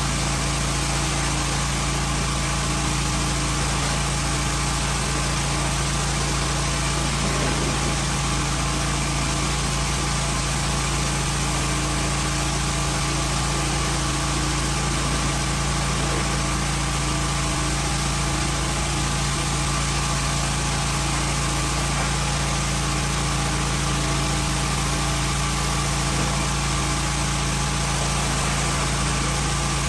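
Pressure washer's small gas engine running at a steady pitch, with a constant hiss from the spray.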